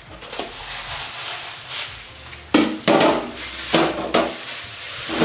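Handling of a plastic bowl and bag in a stainless-steel kitchen sink: a steady rushing noise at first, then several loud clattering, rustling knocks in the second half.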